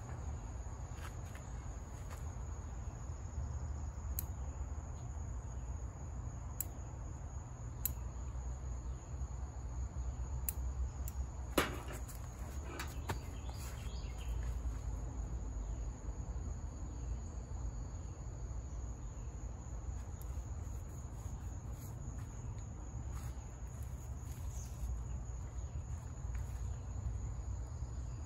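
Steady high-pitched insect chorus, with scattered short sharp clicks of bonsai scissors snipping arborvitae branches; the loudest click comes near the middle.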